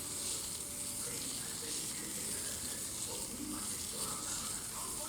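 P1500 sandpaper rubbing on a CPU die, a steady fine scratching hiss.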